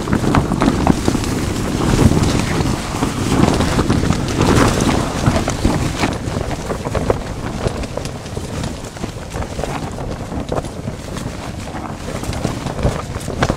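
Orange nylon tent fabric rustling and flapping continuously as it is pulled and handled from inside, with wind buffeting the microphone.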